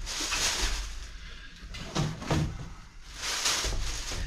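Large cardboard boxes being shifted and handled: cardboard scraping and rustling, with a couple of dull knocks about two seconds in.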